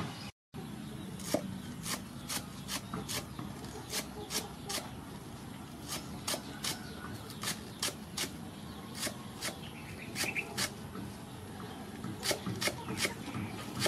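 Cleaver chopping green onions on a wooden chopping board: a run of sharp knocks, two or three a second and unevenly spaced.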